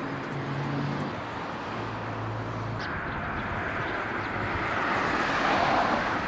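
Street traffic noise: a low, steady engine hum, then after a sudden change about three seconds in, the rushing road noise of a passing vehicle that swells to a peak near the end.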